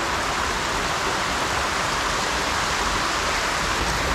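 Steady rush of creek water cascading over boulders.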